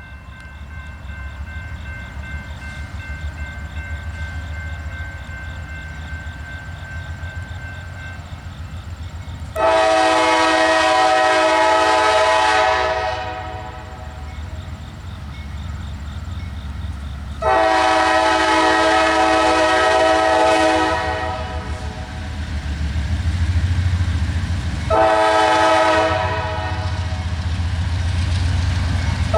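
A diesel-electric locomotive rumbling as it approaches, then its Nathan K5LA five-chime horn sounding the grade-crossing signal: two long blasts, a short one, and a long one that runs on.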